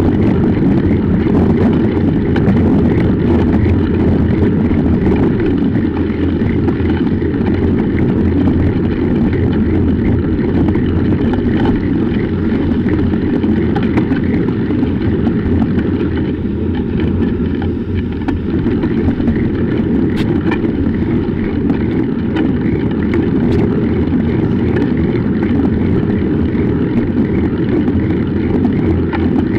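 Steady rumble of bicycle tyres rolling over a snow-packed road, with wind on the microphone of an action camera mounted low on the bike.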